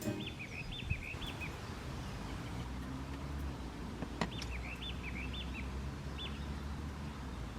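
A songbird singing two short phrases of quick up-and-down whistled notes, one at the start and one about four seconds later, over a steady low rumble. A single sharp click comes just before the second phrase.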